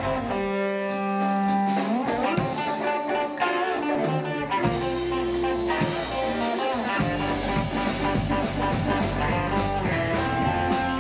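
Electric guitars playing blues-rock. Long held notes slide upward about two seconds in, and the bass and drums come in fully about seven seconds in.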